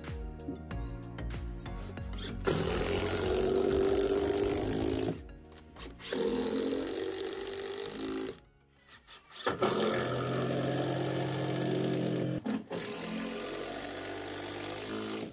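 Cordless impact driver driving long screws into a timber beam, in four runs of two to three seconds each with short pauses between. Background music plays underneath.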